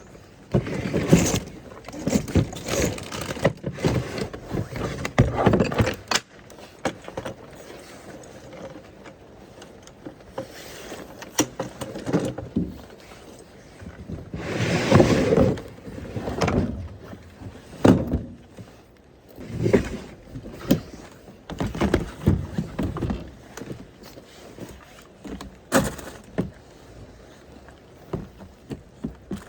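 Irregular knocks, clunks and rustling of things being handled and moved, with a longer noisy swell about halfway through.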